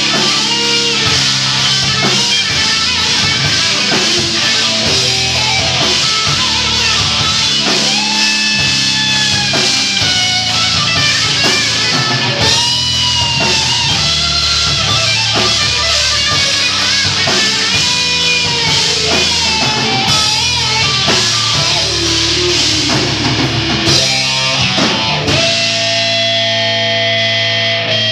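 A live rock band playing: electric guitar with bending lead lines over bass guitar and drum kit. About 25 seconds in the drums stop and a held, effected guitar note rings on.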